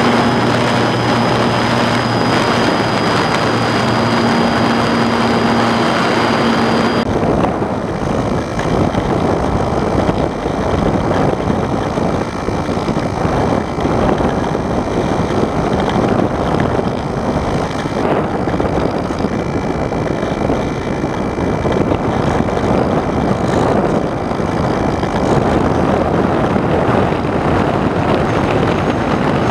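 Radio-controlled model airplane's motor and propeller running through takeoff and flight, heard from on board. A steady pitched tone is clear for about the first seven seconds, then mostly gives way to the rush of air over the microphone.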